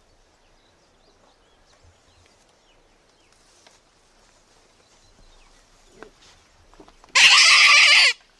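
A game call sounding once, loud and sudden, for about a second near the end: a pitched, animal-like cry. Before it there is only faint outdoor background.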